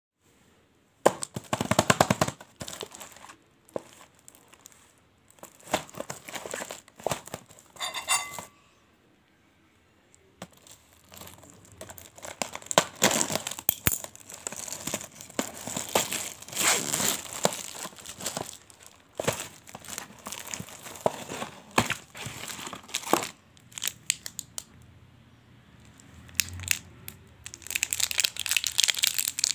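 Plastic shrink-wrap crinkling and tearing as a chocolate box is unwrapped by hand, in irregular bursts with a short squeak about eight seconds in and a brief pause just after. Toward the end come the crinkles of a foil-and-plastic chocolate bar wrapper being handled.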